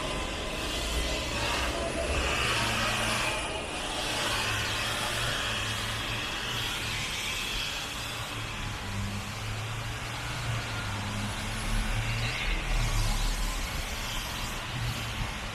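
City street traffic: a steady low rumble of vehicles running past, with a hiss that swells and fades as they go by.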